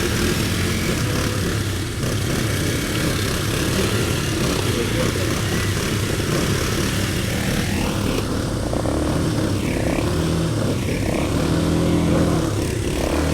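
ATV engine running steadily as it is ridden. From about halfway through, its pitch rises and falls with changes in throttle.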